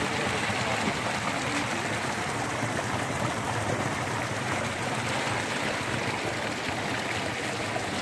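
Water flowing fast and steadily through a narrow channel in a field.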